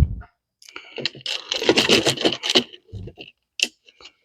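Scraping, rubbing and clicking of small metal carburettor parts being handled and fitted by hand, with a thump right at the start, the busiest scraping in the middle and a few separate clicks near the end.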